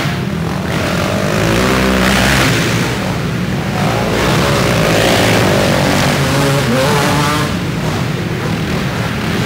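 Several racing quad (ATV) engines running at once, their pitch rising and falling as the riders accelerate and back off over the dirt jumps.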